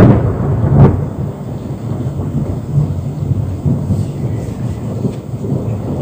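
Close thunder rumbling loudly, with a sharp crack under a second in, then dying away to a lower, steady rumble.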